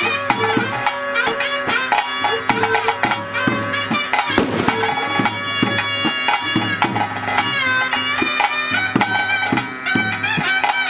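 Traditional nema ritual music played live: a shrill reed pipe playing a winding melody over steady drumming.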